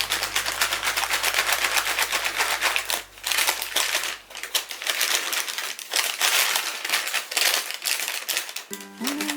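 Rapid, repeated knocking of a cake tray full of batter against the counter, tapping to drive out the air bubbles, with short pauses about three and six seconds in. Faint background music fades out in the first half.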